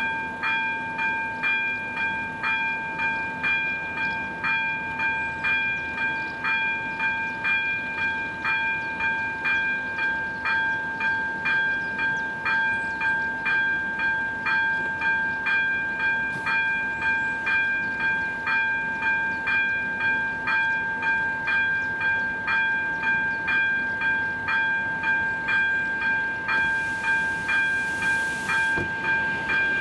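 Electric warning bell of an AŽD 71 level-crossing signal, ringing in a steady even rhythm of about three strokes every two seconds. It sounds while the crossing's lights flash to warn of an approaching train.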